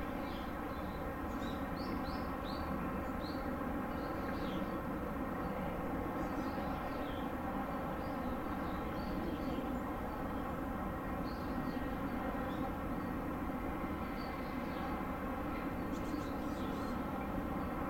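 A large ship's machinery droning steadily with a layered mechanical hum, while small birds chirp over it now and then, with a short flurry of chirps near the end.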